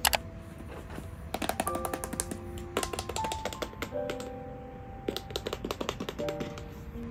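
Soft background music with a simple melody of held notes, over irregular clusters of light tapping clicks from the cardboard iPhone box being handled.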